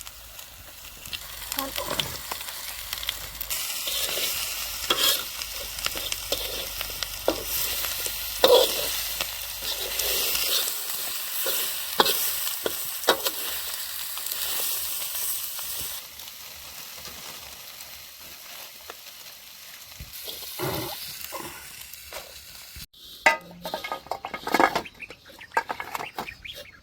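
Food sizzling as it fries in a pan, stirred with a spatula that scrapes and clicks against the pan. The sizzle is loudest in the first half and dies down about two thirds of the way in, with sharper clicks near the end.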